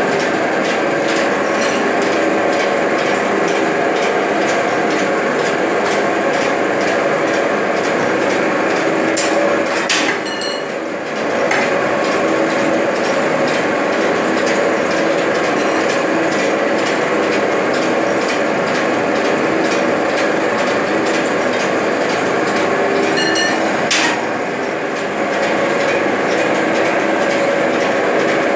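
Automatic noodle-making machine running: a steady mechanical clatter from its rollers and chain-driven conveyor, with rapid ticking and knocking throughout. It briefly drops in level twice, each time with a sharp click.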